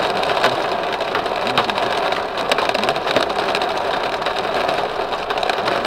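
Hail and heavy rain drumming on a car's windshield, heard from inside the cabin: a dense steady patter full of sharp ticks from hailstones striking the glass.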